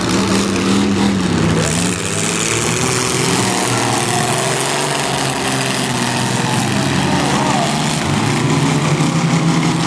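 Engines of several small demolition derby cars running and revving, a steady loud engine sound whose pitch wavers up and down.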